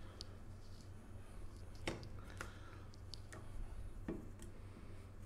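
Faint, scattered clicks and taps as filled pasta tubes are set one by one into a ceramic baking dish, over a steady low hum.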